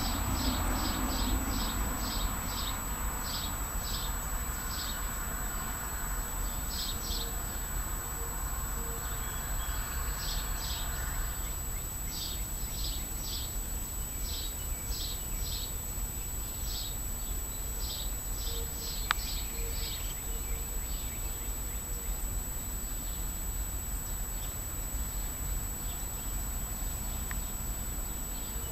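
American robin nestlings begging in the nest: thin, high chirps in quick clusters, repeated for about twenty seconds and then stopping, over a steady low background hum. A single sharp click sounds about two-thirds of the way through.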